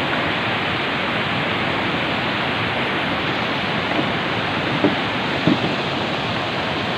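Steady rushing of a rocky mountain stream, water pouring over boulders in shallow rapids.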